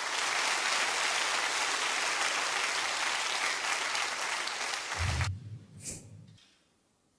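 Snooker crowd applauding a fluked escape from a snooker, cutting off after about five seconds. A short low hum and a single click follow as the applause ends.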